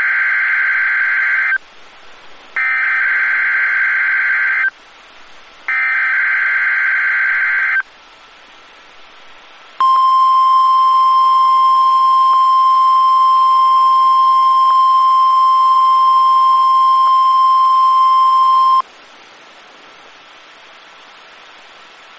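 NOAA Weather Radio weekly test alert: the SAME digital header sent three times as bursts of warbling data tones, each about two seconds long with a second between them. Then the 1050 Hz warning alarm tone holds steady for about nine seconds and cuts off, leaving faint radio hiss.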